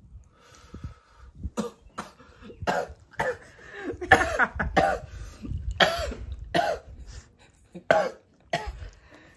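Human voices in short, indistinct bursts, coming thick and fast from about a second and a half in, with no clear words.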